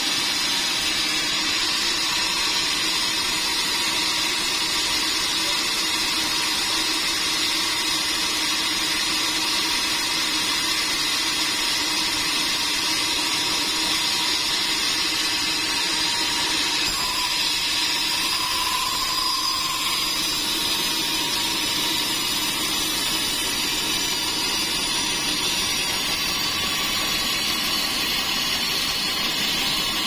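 Band sawmill running steadily, a constant machine drone with a few held tones.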